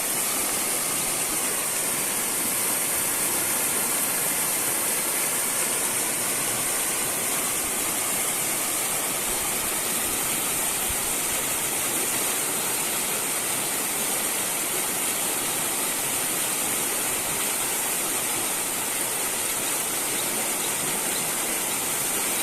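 River water rushing and splashing over its bed, a steady, even rush.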